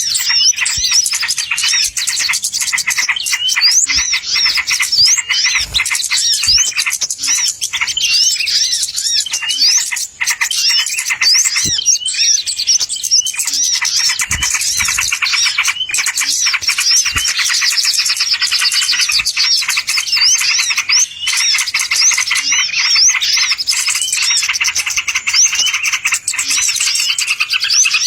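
Dense, unbroken chattering of many small songbirds, quick high chirps and trills overlapping one another: a bird-lure (pikat) recording used to draw wild birds in.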